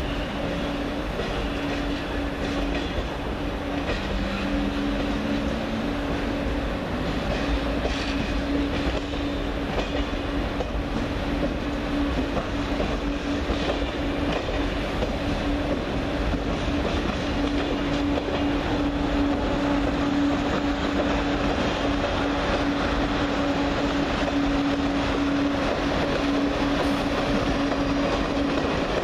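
TGV high-speed trainset rolling slowly through the station: a steady running noise with a held low hum, growing a little louder as the power car comes level near the end.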